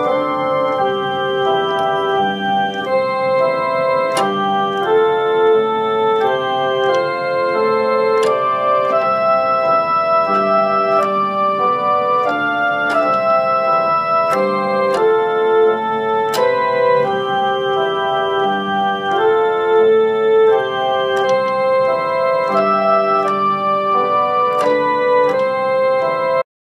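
Slow instrumental keyboard music, held chords with a melody above them, cutting off suddenly near the end.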